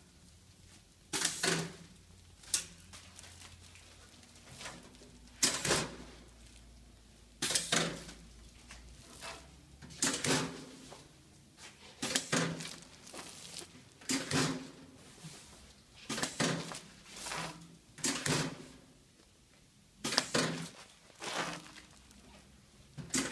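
A pedal-operated textile hanger bagging machine cycling over and over: a short, sharp mechanical burst about every two seconds as each bagging stroke fires.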